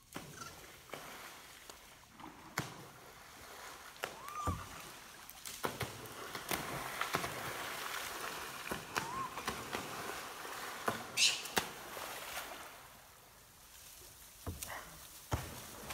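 Rhesus macaques belly-flopping into a river one after another: about a dozen sharp, irregular splashes that crack like .22 rifle shots. Among them are brief monkey calls and a short high-pitched screech about eleven seconds in, the loudest sound.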